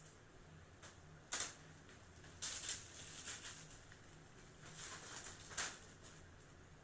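Plastic sheeting crinkling and rustling in short bursts as it is handled, the kite's plastic covering being worked on over a faint steady hum.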